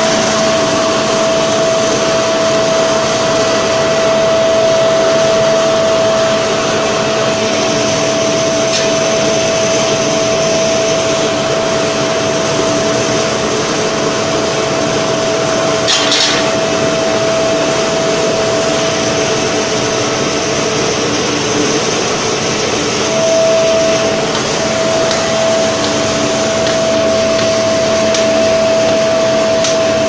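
A cupola furnace's air blower runs with a steady rushing noise and a constant whine. There is a single sharp knock about halfway through.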